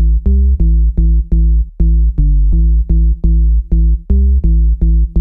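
Electronic intro music: a bass-heavy synth chord pulsing in a steady beat, about three pulses a second.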